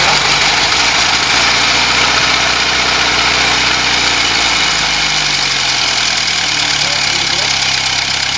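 Ford Model T four-cylinder engine idling steadily on a freshly assembled bare chassis. Its speed shifts slightly about halfway through.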